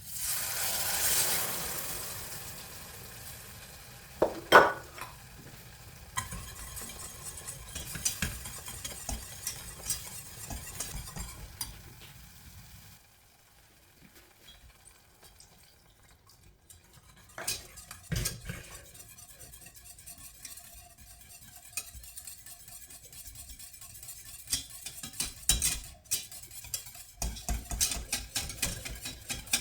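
Stirring a white sauce in a saucepan, with a spoon or whisk scraping and clinking on the pan. It opens with a sizzle that fades over a few seconds, and a sharp knock about four seconds in is the loudest sound, with scattered knocks and clinks after it.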